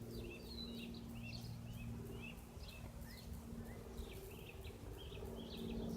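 Small birds chirping in short, repeated calls over a faint, steady low hum.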